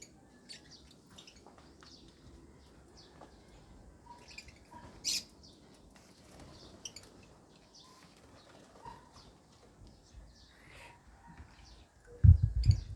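Lovebirds chirping faintly in short high notes, with scattered small ticks, during their bath. About twelve seconds in comes a loud burst of low thuds.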